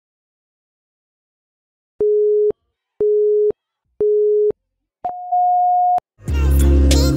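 Countdown beeps: three short, steady, low electronic beeps a second apart, then one longer, higher beep. About a second later, music with a heavy bass beat starts.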